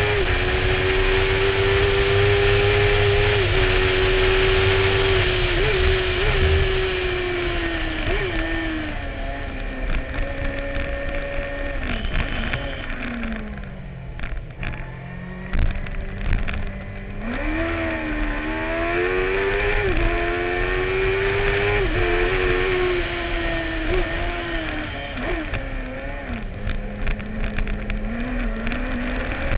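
Racing sidecar's Suzuki engine heard onboard, held at high revs on a straight. About halfway through, the revs fall in steps through downshifts as it slows for a corner, then climb again in several short rising sweeps through the gears and hold high on the next straight.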